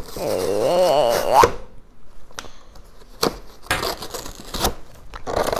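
Cardboard toy box and its paper backing being torn open by hand: a series of short rips and scrapes, one longer tearing run about four seconds in. A wavering voice is heard in the first second and a half.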